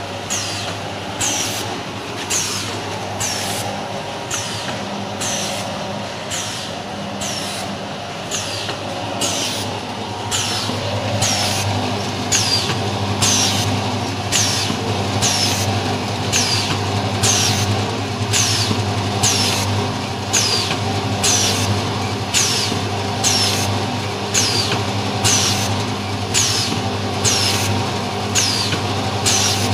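Pyramid-bag vertical form-fill-seal packing machine running: a steady low hum with a short hiss that falls in pitch on every cycle, at an even pace of roughly three every two seconds, one cycle for each sachet formed, filled and sealed.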